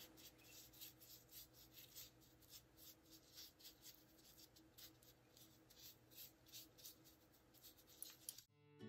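Faint, scratchy strokes of a paintbrush applying chalk paint to a small metal lamp finial, a few strokes a second. Acoustic guitar music starts suddenly near the end.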